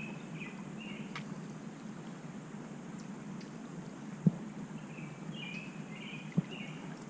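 A songbird calling in two short chirping phrases, one at the start and one about five to six and a half seconds in, over a steady low outdoor background. Two sharp knocks, about four and six seconds in, are the loudest sounds.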